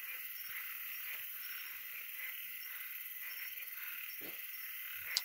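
Steady night chorus of frogs and insects: an even high-pitched trilling with faint short chirps repeating over it.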